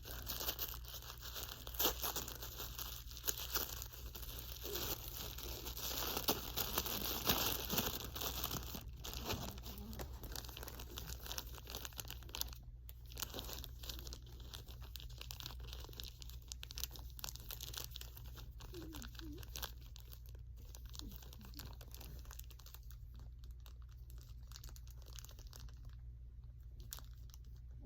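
Packaging being handled and torn open by hand: dense crinkling and tearing, busiest in the first half and thinning out toward the end, over a steady low hum.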